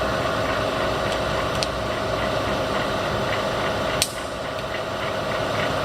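Bridgeport vertical milling machine head running with the quill power feed engaged at its highest feed rate: a steady mechanical gear whir. A sharp click comes about four seconds in, after which the sound drops a little.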